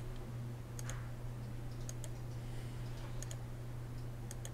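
Faint computer mouse clicks, mostly a quick press-and-release pair, about once a second, each placing an anchor point with Illustrator's pen tool. A steady low electrical hum runs underneath.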